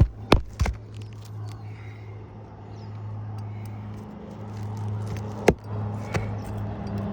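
Hammer driving roofing nails into an architectural asphalt shingle: three quick blows at the start, then a single sharp blow about five and a half seconds in and a lighter one soon after. A steady low hum runs underneath.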